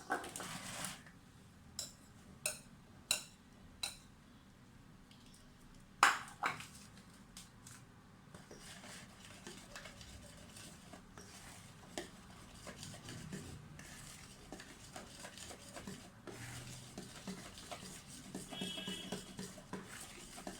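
Kitchen utensils knocking against a mixing bowl: a few light clicks, one louder clack about six seconds in, then steady small scraping and clinking as flour is stirred into cake batter.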